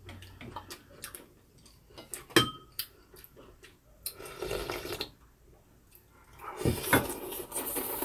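Eating beef rib soup: a sharp clink of a utensil on a ceramic bowl a little over two seconds in, a sip of broth straight from the bowl around four seconds, and slurping of noodles from the soup near the end.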